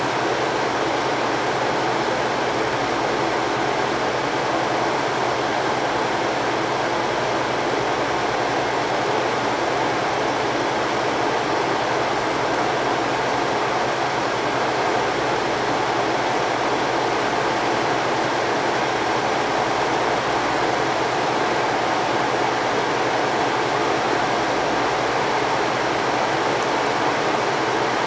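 Haier ESAQ406T window air conditioner's indoor blower fan running steadily in fan-only mode with the compressor off, a constant rush of air through the frosted evaporator coil as it defrosts.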